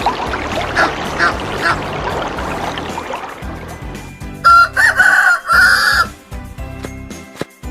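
A rooster crowing once, loudly, about halfway through, after a few seconds of busy farmyard background noise.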